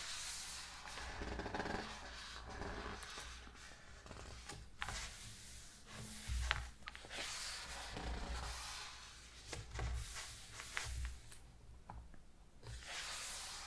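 Thick glossy pages of a large hardcover coffee-table book being turned and smoothed down by hand close to the microphone: repeated papery swishes and rustles, with a few soft low thumps.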